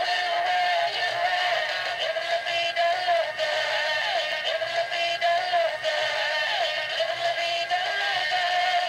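A Gemmy Grave Raver animated dancing skeleton playing its built-in dance song, with a synthesized singing voice, from its own speaker.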